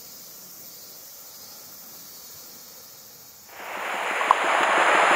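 Faint steady hiss. About three and a half seconds in, the loud rushing of a white-water mountain stream swells up, with a single sharp knock shortly after.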